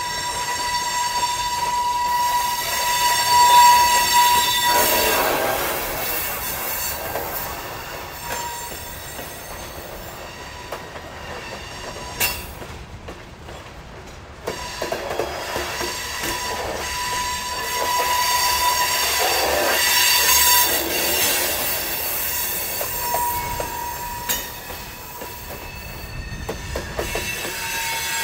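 A very heavy train rolling past on century-old track, the track creaking under its weight. A high, steady wheel squeal comes and goes several times over the rolling noise, loudest in the first few seconds and again past the middle.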